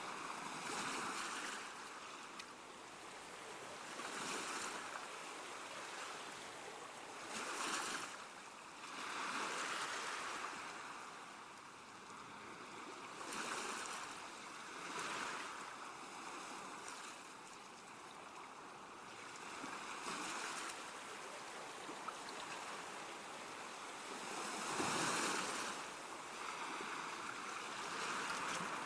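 Rushing water ambience, a steady hiss that surges and eases every few seconds, with no melody.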